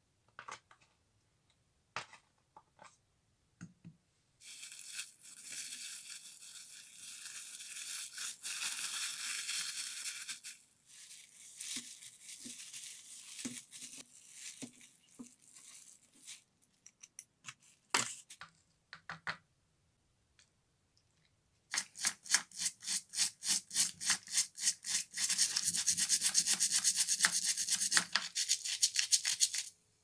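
Plastic cling film crinkling as it is handled and peeled back from a brass buckle coated in cleaning paste. Later, the buckle is scrubbed in a fast, even rhythm of about three to four strokes a second, the loudest part.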